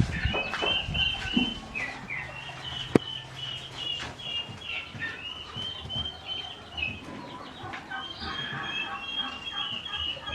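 Birds chirping steadily, a run of many short high notes, with a few soft thumps near the start and a single sharp click about three seconds in.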